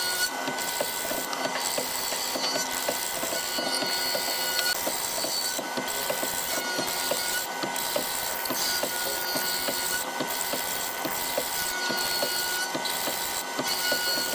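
Woodworking mortising machine cutting a mortise into a hardwood board: a steady machine running sound with a fast, regular knocking as the chisel works through the wood.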